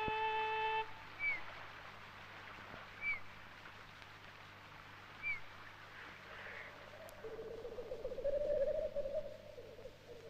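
A flute melody ends just after the start. Then forest birdsong: three short high chirps a couple of seconds apart, and from about six seconds in a low, quavering call that runs on.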